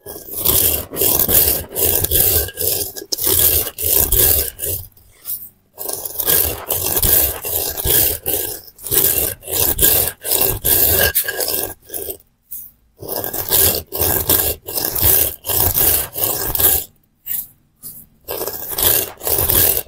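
Stone roller rolled back and forth over whole black gram (urad) on a carved stone grinding slab (sil-batta): a rhythmic gritty scraping and crunching, about two strokes a second, with a few short breaks. The seeds are being cracked to loosen their husks.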